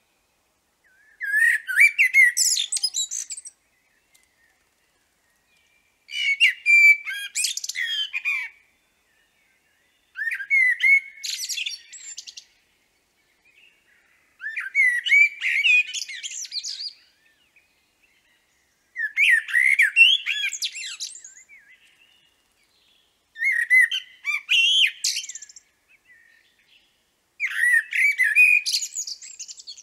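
Common blackbird singing: seven song phrases, each about two seconds long, separated by pauses of about two seconds.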